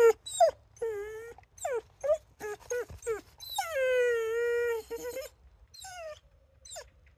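Vizsla whining and yelping in a string of short calls that rise and fall in pitch. About halfway through comes one long whine, and then a few more short ones.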